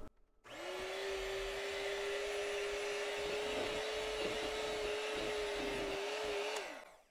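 Electric hand mixer running at a steady pitch, its beaters whipping melted melt-and-pour soap into a whipped soap base until it thickens. The motor spins up about half a second in and winds down near the end.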